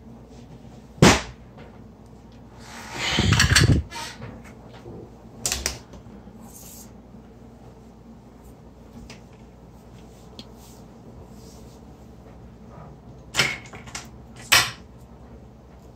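Handling noise at a workbench: a few sharp clicks and knocks as tools and an LED strip are picked up and set down on a silicone mat, with a louder rustling swell about three seconds in, over a low steady hum.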